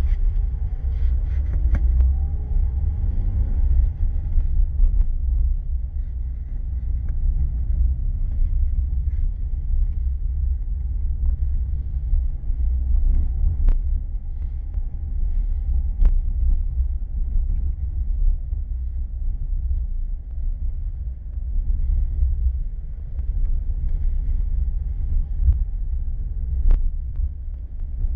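Steady low rumble of a car's engine and tyres heard from inside the cabin through a dashcam's built-in microphone while driving. The engine note rises over the first few seconds as the car picks up speed, and there are a few sharp clicks.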